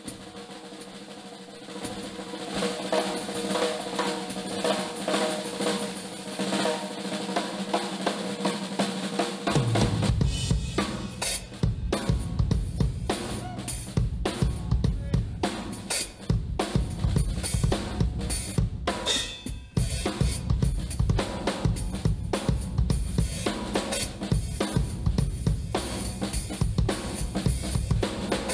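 Background music: held chords at first, then a drum-kit beat with bass drum, snare and cymbals that comes in about a third of the way through.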